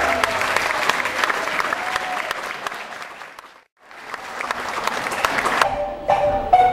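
Audience applauding, dying away to a brief silence about three and a half seconds in. The applause picks up again, and a few ringing marimba notes come in near the end.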